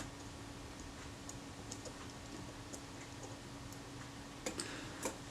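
Faint, scattered small metallic clicks and ticks of tools and parts as a spring is worked back into a Synchro-Compur leaf shutter, with two louder clicks near the end.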